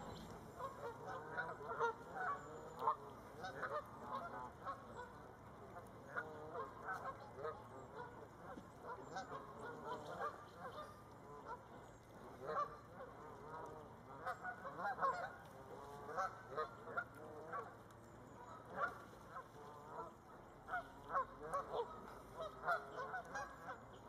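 A group of Canada geese honking: many short calls, often several at once, coming in clusters every second or two.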